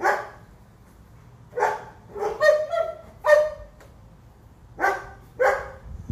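German Shepherd barking, about eight short barks in irregular bursts, several in quick succession in the middle.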